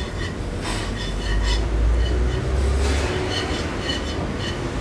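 Spatula scraping and stirring a butter-and-flour roux in a frying pan, with short, irregular clicks against the pan over a steady low rumble in the kitchen.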